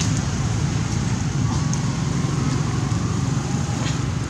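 Steady outdoor background noise: a low rumble under an even hiss, with a few faint clicks.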